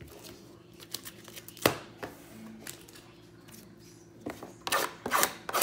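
Hands handling trading cards and a cardboard hobby box: a single sharp tap about one and a half seconds in, then several quick crinkling, scraping bursts near the end as the last box is opened.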